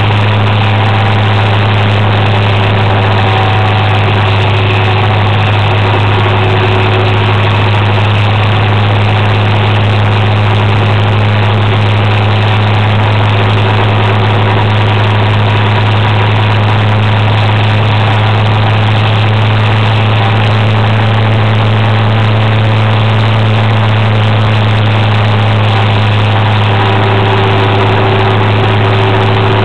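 Motor scooter engine running at a steady cruising drone, one low note that barely changes, under a constant rush of wind and road noise.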